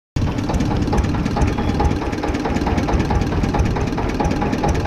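Small stationary engine running steadily as it drives a sugarcane juice crusher's rollers, cutting in suddenly at the start.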